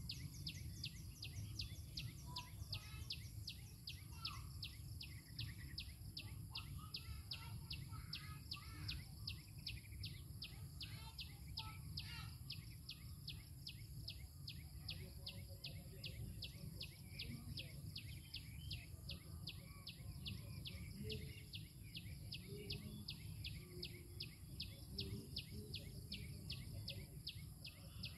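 Outdoor ambience: an unbroken, even chirping at about four chirps a second, with scattered faint bird calls, a steady high hum and a low rumble underneath.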